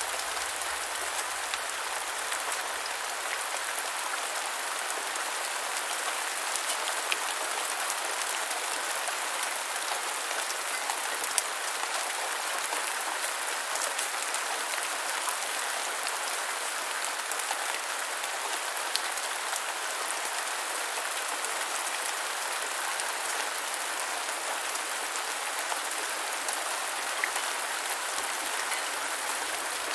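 Light rain falling steadily, a continuous hiss with scattered individual drops ticking.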